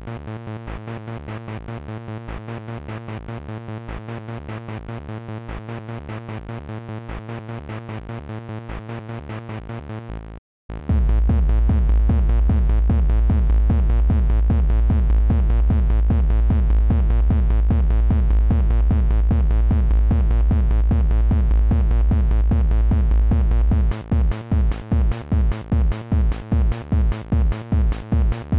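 Synthesized electronic music from an Amiga 4 KB intro, with a steady pulsing beat. About ten seconds in it cuts out for a split second and comes back louder with a heavy bass pulse; near the end it turns to sharp, choppy beats.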